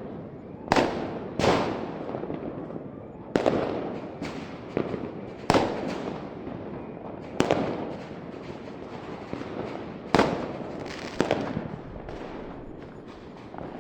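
Fireworks going off: a sharp bang every one to three seconds, about seven loud ones, each trailing off in a rumbling echo, with smaller pops and crackle in between.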